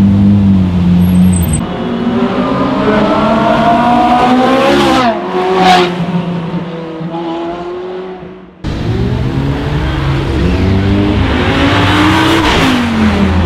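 Ferrari F430 Spider and 458 Italia V8 engines revving as the cars accelerate away, the nearer F430's note climbing and then dropping sharply as it passes close by about five seconds in. After a cut, an Audi R8 V10 engine revs as the car accelerates past, its pitch rising and then falling near the end.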